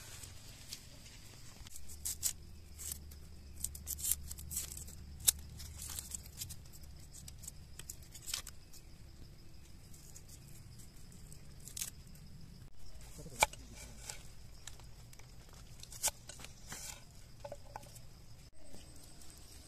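Small knife peeling and cutting a raw red onion: scattered sharp clicks and crisp cuts, some of the blade striking the wooden board.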